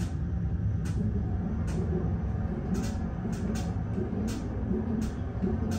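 Mongrain hydraulic elevator cab rising, heard from inside the cab: a steady low hum and rumble of the ride, with light clicks at uneven intervals, roughly every half second to a second.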